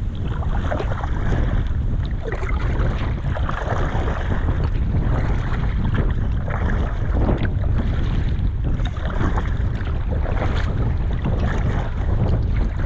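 Strong wind buffeting the microphone: a constant low rumble with frequent short gusts flaring over it.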